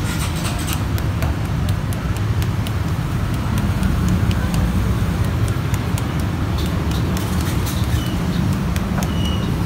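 Road traffic: a steady low rumble of passing vehicles, with scattered light clicks and taps over it.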